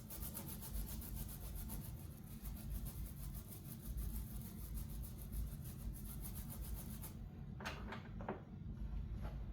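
Brush scrubbing flux off a soldered circuit board in quick back-and-forth strokes, about four or five a second. The scrubbing stops about seven seconds in, followed by a few light knocks.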